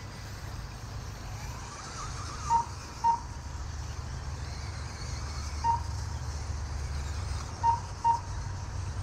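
Lap-counting system beeping as the radio-controlled 2WD buggies cross the timing line: five short beeps at one pitch, a pair, then a single, then another pair. Under them is a steady low rumble with a faint high whine from the cars running.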